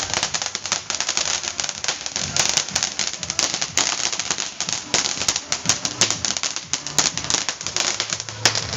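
Firework crackling: a dense, irregular run of rapid small pops and snaps that keeps going without a break.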